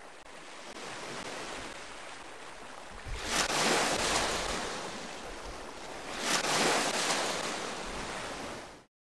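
Ocean surf: a steady wash of waves, with two waves swelling and breaking about three seconds in and again about six seconds in. It cuts off abruptly near the end.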